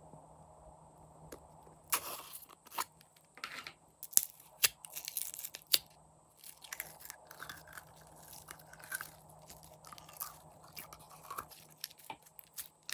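Slime being mixed and squeezed by hand, making irregular crackling clicks and pops that start about two seconds in and come thick and fast through the middle.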